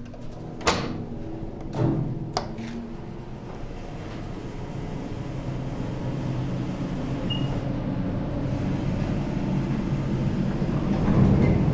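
Otis hydraulic elevator car in travel, heard from inside the car: a few knocks and clunks in the first couple of seconds, then a steady low hum that slowly grows louder. A short high beep sounds about seven seconds in.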